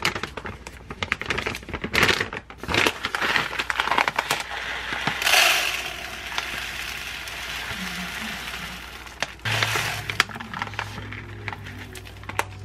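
Crinkling and crackling of a rice packaging bag being opened and handled, then dry brown rice grains pouring from the bag into a plastic container as a steady hiss that thins out. A low steady hum comes in about three-quarters of the way through.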